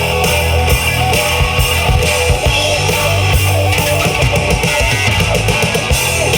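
Live rock band playing loudly: electric guitars, bass guitar and a drum kit keeping a steady beat, with no vocals.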